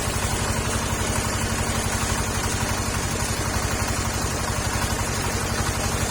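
Petrol engine driving a circular sawmill, running steadily with a fast, even pulse.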